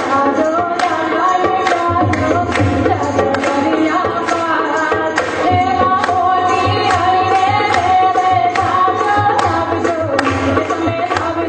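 Woman singing an Indian folk song with tabla accompaniment: a held, wavering vocal line over steady tabla strokes.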